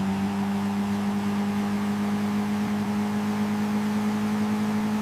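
Steady electric hum or whir from a sound effect, a low tone with a few overtones, its pitch creeping up slightly.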